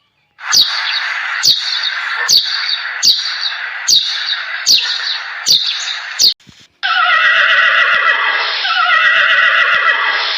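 Animal calls: a run of about eight harsh, hissing calls, each starting sharply, close to one a second. After a brief break comes a long call with several wavering pitches.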